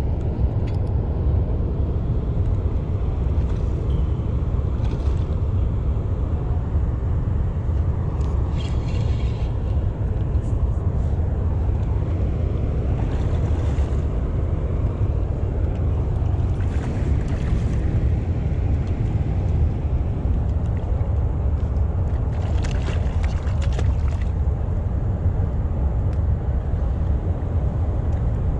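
Steady low roar of water rushing through a dam's spillway tailwater, even in level throughout.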